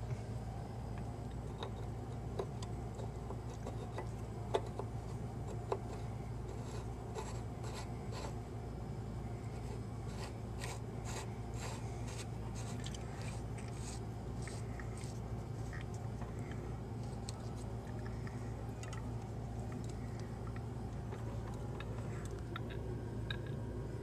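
Light scraping and clicking of a Delta faucet's metal screw cap being turned by hand onto the threaded faucet body, with a few sharper clicks near the start, over a steady low hum.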